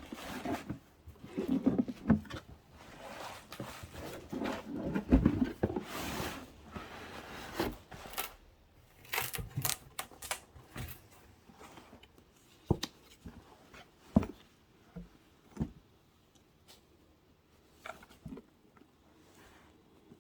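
Handbag packaging and bag being handled during an unboxing: rustling with scattered taps and clicks, busy for the first several seconds, then only occasional clicks.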